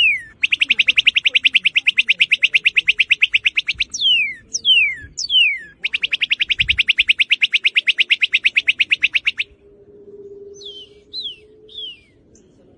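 Northern cardinal singing loud clear song: a few downslurred whistles, each falling sharply in pitch, around two long rapid trills of quickly repeated notes, about a dozen a second, each trill lasting about three seconds. Near the end come a few more short falling whistles.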